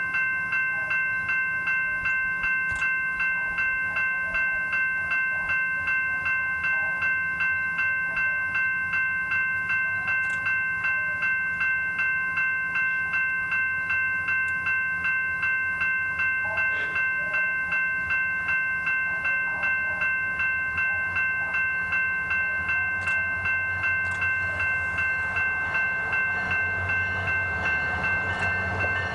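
A warning bell ringing in a steady, even rhythm as a SunRail commuter train approaches and passes, with the train's low rumble growing louder near the end.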